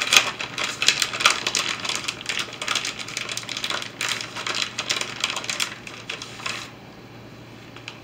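Plastic bag crinkling and crackling as it is squeezed and folded in the hands; the crackle stops about two-thirds of the way through.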